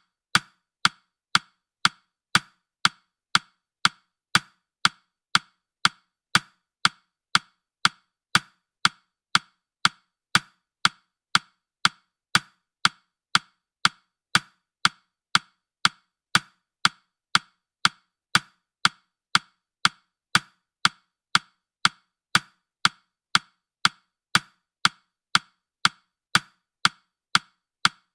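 Countdown timer's clock-tick sound effect: short, sharp ticks at a steady pace of about two a second.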